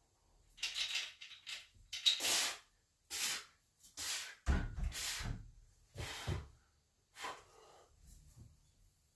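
A man's forceful breathing during a set: a string of sharp, hissing exhales, roughly one a second, with lower grunting breaths mixed in around the middle.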